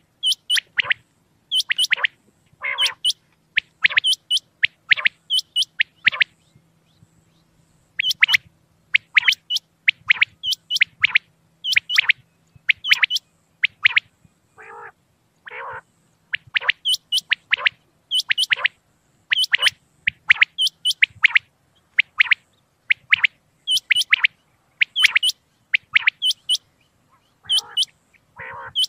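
Common quail calling over and over: short, sharp, high notes in quick groups about once a second, with a few lower, rougher calls mixed in and a brief pause about six seconds in.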